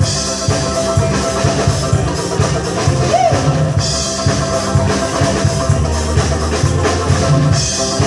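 A live band playing a song, led by a drum kit keeping a steady beat. Bright cymbal washes come in at the start, about halfway through and again near the end.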